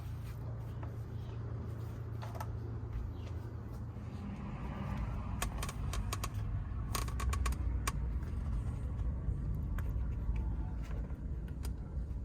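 Scattered clicks and light knocks from handling, thickest about five to eight seconds in, over a steady low rumble.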